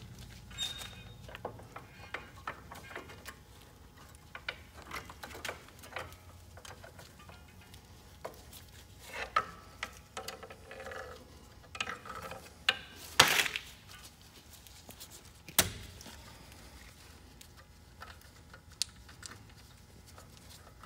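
Metallic clinks, scrapes and knocks of a steel pry bar working against a semi truck's drum-brake shoes and springs, scattered through, with the loudest a sharp clank a little past the middle.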